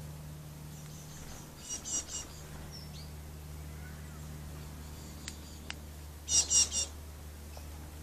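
Jackdaw calls: a group of three short, high calls about two seconds in, and a louder group of three about six and a half seconds in.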